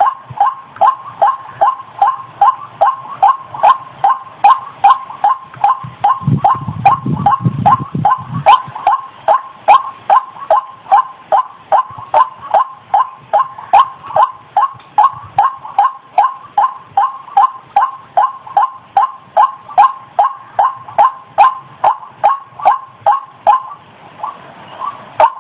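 White-breasted waterhen's croaking 'ruak-ruak' call, repeated in a steady rhythm of about two notes a second, as used to lure the bird.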